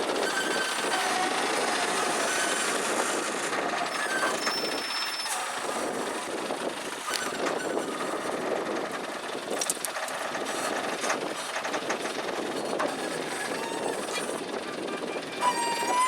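Heavy machinery running: a steady mechanical clatter, with a few brief thin tones over it and a louder stretch near the end.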